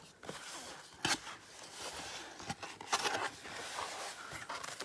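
Product packaging being handled and opened: rustling and scraping, with a couple of sharp knocks.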